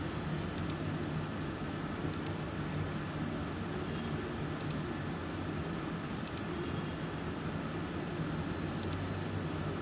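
Faint computer mouse clicks, single and in quick pairs, a few seconds apart, over a steady low hum.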